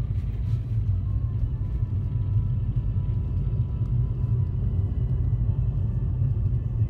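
Steady low road rumble of a moving vehicle, heard from inside the cabin.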